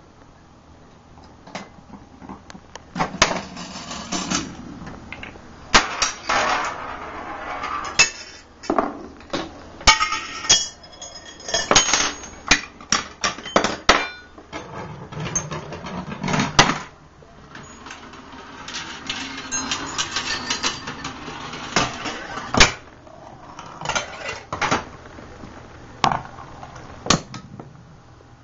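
Homemade Rube Goldberg chain-reaction machine running: balls rolling along metal rails between a long, irregular string of clinks, knocks and rattles as pieces strike metal and glass.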